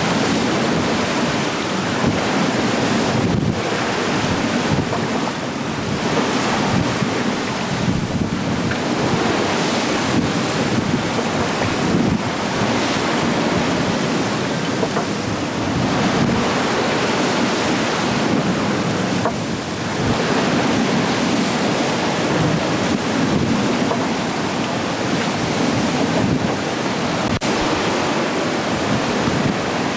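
Sea breaking white and rushing along the hull of a sailing ship driving through heavy seas, with strong wind buffeting the microphone. A steady rush of water and wind that swells and eases as the waves pass.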